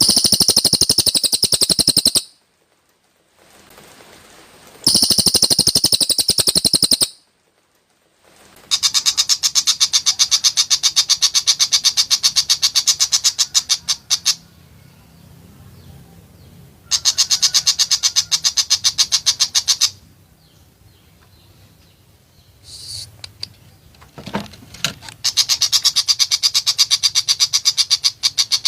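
Green leafbird (cucak ijo) giving harsh, rapid-fire 'tembakan' bursts: fast machine-gun-like trains of sharp, high notes in runs of two to five seconds, broken by short pauses, with a few scattered separate calls in one of the pauses.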